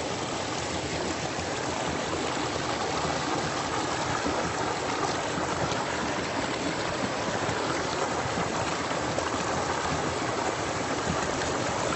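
River water flowing with a steady, even rush.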